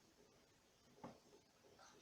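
Near silence: room tone, with one faint short sound about a second in.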